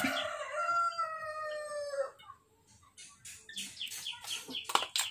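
A rooster crowing once, a call of about two seconds that sags slightly in pitch at the end. Small birds chirp faintly afterwards, along with a few light clicks.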